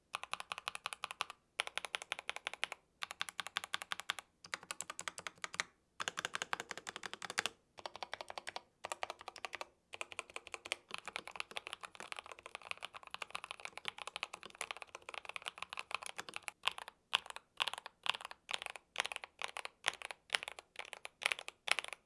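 Tecware Phantom+ 87 mechanical keyboard with pre-lubed Tecware Wraith Pink linear switches being typed on fast and continuously, in runs of rapid keystrokes broken by a few brief pauses. Its stabilizers are well tuned, with no rattle or tick.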